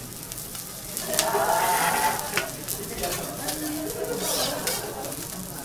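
Fish fillet sizzling on a hot teppanyaki griddle: a steady frying hiss with scattered small crackles and pops, louder for a moment about a second in.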